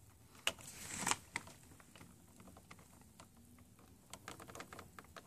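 Small clicks and scraping of a wire being jammed into the pin of a plastic electrical connector. A few sharp clicks with a short scrape come about a second in, and a patter of little ticks follows near the end.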